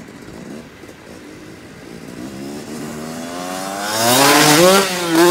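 Freestyle motocross bike's engine, faint at first, then growing much louder and rising in pitch as it revs up over the last couple of seconds, with the revs rising and dipping near the end.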